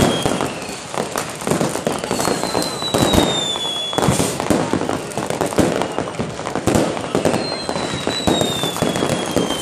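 Fireworks and firecrackers banging and crackling in rapid, overlapping succession, with high whistles that slide slowly down in pitch several times.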